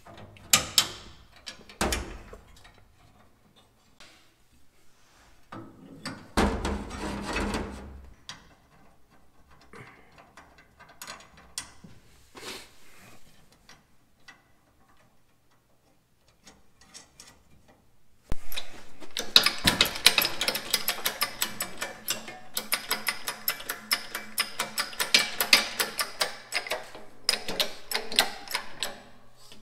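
Sparse metallic clicks and knocks of aluminium lever-linkage parts being handled and fitted. About eighteen seconds in, a louder, continuous stretch of rapid clicking and ticking sets in.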